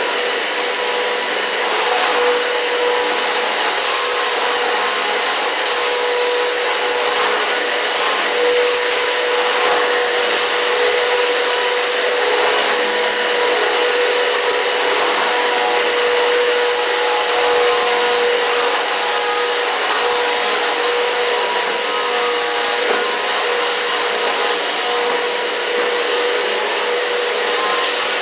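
Eureka PowerSpeed upright vacuum cleaner running steadily with a constant high motor whine, with scattered brief crackles of debris being sucked up.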